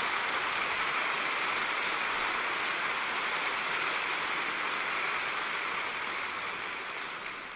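Theatre audience applauding, a steady dense clapping that dies away near the end.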